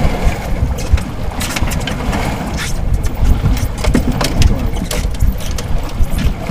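Wind buffeting the microphone aboard a small fishing boat in choppy water: an uneven low rumble, broken by scattered sharp knocks and rustles.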